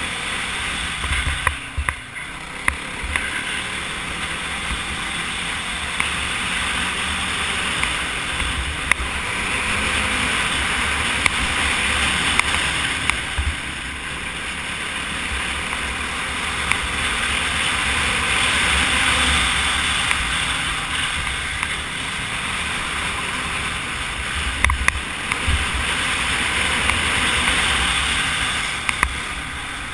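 Wind rushing over the microphone of an ATV riding fast on a dirt road, with the quad's engine and tyres running under it; the rush swells and eases in slow waves as speed changes, with scattered sharp ticks of gravel.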